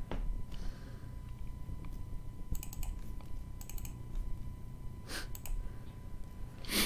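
A few short runs of clicking on a computer keyboard, in three small clusters about two and a half, three and a half and five seconds in.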